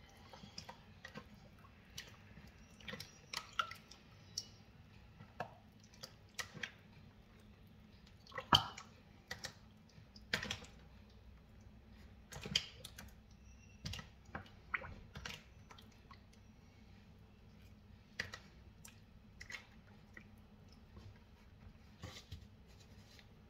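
Hands kneading and rubbing a wet spice marinade into whole raw chickens in a plastic basin: faint, irregular wet squelches and clicks, the loudest about eight and a half seconds in.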